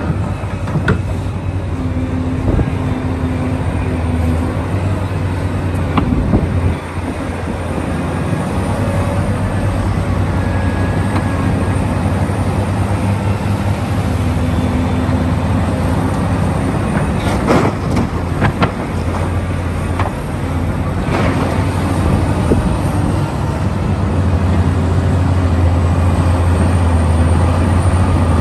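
Large excavator's diesel engine running with a steady low drone, with a few sharp metallic knocks from the working machine about a fifth of the way in and again around two-thirds through.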